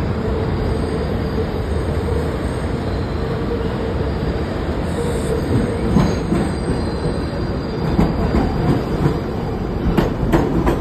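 R188 subway train on the 7 express arriving along elevated track: a steady rumble with a held wheel squeal, and sharp clicks of wheels over rail joints as the cars pass the platform near the end.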